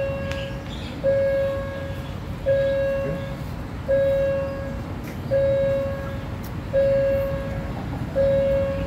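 Railway level-crossing warning bell ringing: a single-pitched ding that starts sharply and fades, repeating evenly about every one and a half seconds, over a low rumble. It signals that the crossing is closed for an approaching train.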